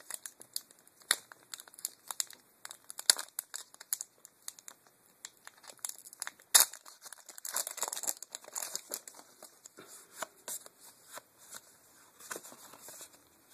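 Foil wrapper of a Magic: The Gathering booster pack crinkling and tearing as the pack is opened, with many irregular crackles and a few sharper snaps.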